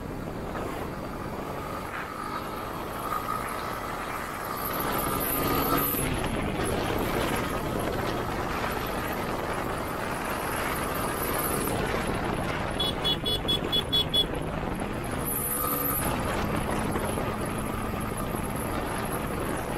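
Motorcycle riding along a highway in traffic: steady engine, wind and road noise, with the engine pitch rising and falling twice. About two-thirds of the way through comes a quick run of short, high beeps lasting just over a second.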